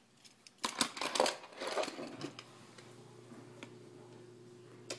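Plastic toy playset being handled: a run of clicks and rattles for about a second and a half, then a single sharp click near the end. A steady low hum sets in about two seconds in.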